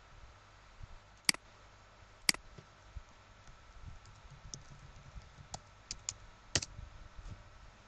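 Two sharp computer mouse clicks about a second apart, then a run of lighter keyboard key taps as a word is typed.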